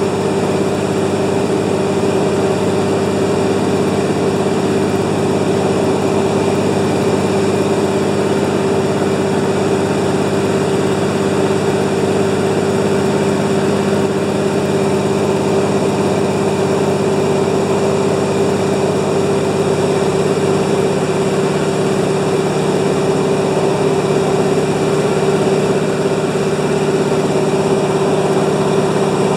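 Beaver floatplane's piston engine and propeller running steadily at constant power, a loud even drone with a strong hum that does not change.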